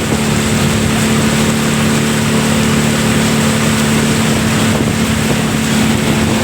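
Motorboat engine running at a steady speed, a constant drone with the rush of water and wind.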